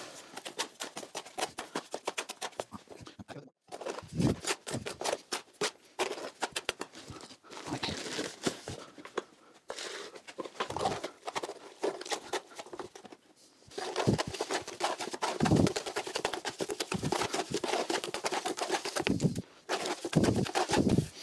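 A trowel scraping and stirring a chalk-and-sand mortar mix in a bucket, a quick run of scrapes and clicks. About halfway through, water is poured in and the mix is stirred wet, with denser scraping near the end.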